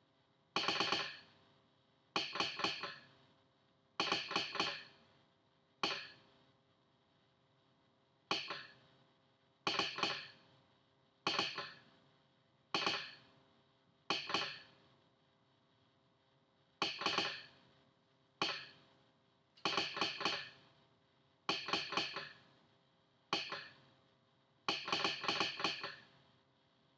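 Telegraph sounder, driven by an Arduino, clacking out Morse code: its armature strikes in a quick cluster of clicks for each character, one cluster about every second and a half, with longer pauses between words, spelling out 'Hope Train Depot!'.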